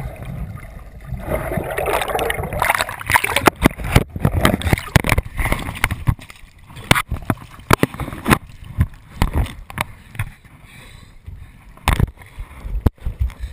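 Water rushing and splashing around a chest-mounted GoPro on a jet ski ride, with many sharp knocks and buffets against the camera, thickest in the middle and again near the end.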